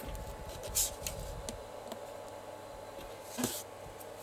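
Hands sliding and pressing a foam part into place on a wooden machine bed: soft rubbing, with two light knocks about a second in and near the end, over a faint steady hum.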